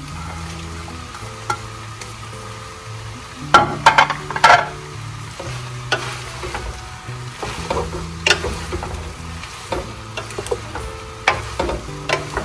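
Two wooden spatulas stirring and tossing shredded vegetables in a pot, scraping and knocking against its sides, with the loudest cluster of knocks about three and a half to four and a half seconds in. Soft background music with held notes runs underneath.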